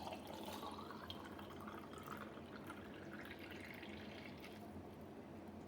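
Milky coffee poured through a tea strainer into a glass: a faint trickle and dripping of liquid.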